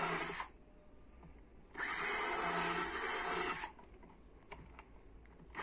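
Cordless drill/driver drilling holes through the side of a plastic flower pot in three runs: one stopping about half a second in, one lasting about two seconds in the middle, one starting again at the end. A few light clicks fall in the gaps between runs.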